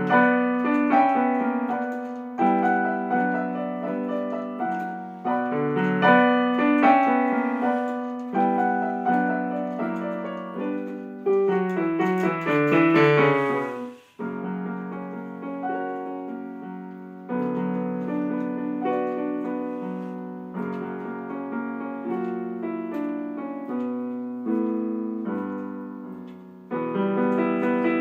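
Solo piano playing a slow piece in phrases of a few seconds each, each phrase struck and then left to fade. A little past halfway a quick rising run climbs and stops abruptly, and the playing resumes more softly.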